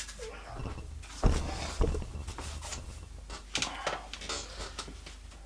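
A person sitting down on a wooden chair: two thumps a little over a second in, followed by scattered small knocks and rustling as they settle.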